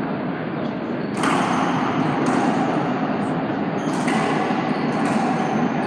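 Racquetball bounced on the hardwood court floor as a player readies to serve: four sharp knocks about a second apart, echoing in the enclosed court over a steady background noise.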